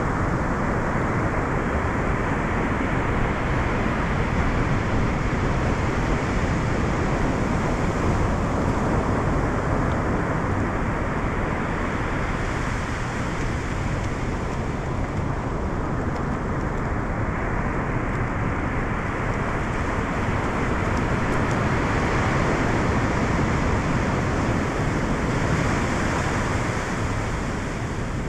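Surf breaking and washing up a sandy beach: a steady rush of noise that slowly swells and eases, with wind rumbling on the microphone.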